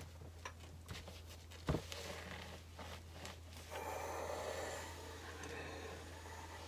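Small handling clicks and a single soft knock, then from about halfway through a steady soft hiss as a clothes iron is pushed over the cotton lining and zipper tape on a pressing board. A faint low hum runs underneath.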